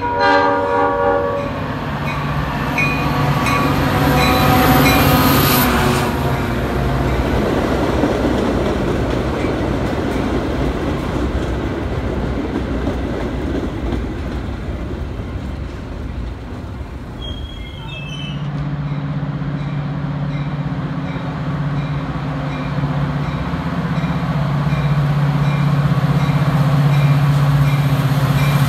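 A commuter train sounds its horn as it comes in, then its bi-level cars rumble and clatter past. About 18 seconds in the sound changes to a diesel locomotive's engine running with a steady low drone as another train pulling bi-level cars approaches.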